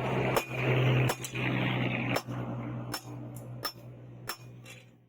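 A blacksmith's hammer striking steel rebar on an anvil in a steady rhythm, about one ringing blow every 0.7 seconds, over a steady low hum.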